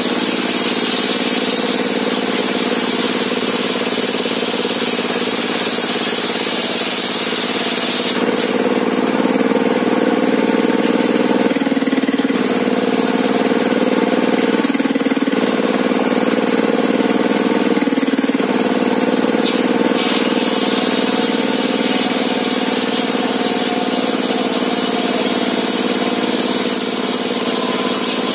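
Engine powering a sawmill table saw, running steadily. It gets a little louder about eight seconds in, and its note dips briefly three times in the middle.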